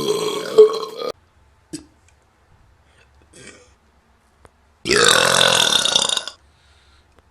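A person burping twice: a burp that tails off about a second in, then, after a pause, a louder and longer burp of about a second and a half.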